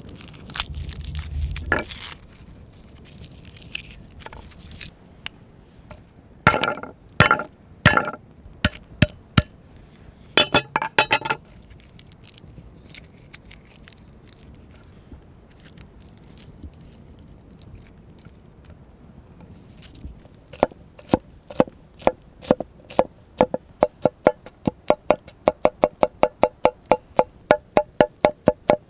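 Garlic being prepared on a wooden cutting board with a wide forged-steel knife: crunching and a few sharp knocks as the bulb and cloves are broken apart, then, near the end, rapid even chopping, about three strokes a second, the blade knocking on the board with a short ring each time.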